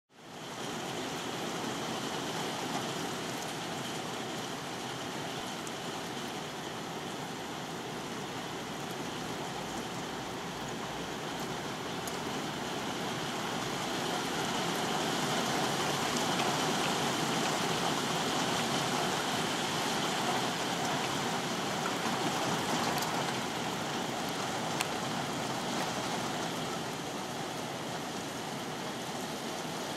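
Steady rain, an even hiss that swells a little about halfway through, with a few faint ticks of drops.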